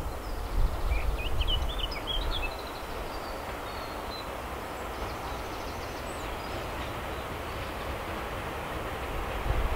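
Diesel locomotive drawing a train towards the listener, its engine and rail noise a steady distant drone that grows louder near the end. Gusts of wind buffet the microphone in the first couple of seconds, and a bird chirps a few times.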